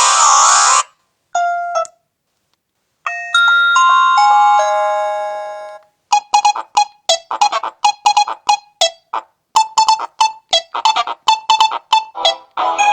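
Old Siemens ringtones played as MIDI through a Samsung C3520i mobile phone's loudspeaker, changing from one tune to the next. A sweeping tone ends, a few short notes follow, then after a short pause a ringing chord phrase fades away. Then comes a quick run of short, clipped notes, several a second.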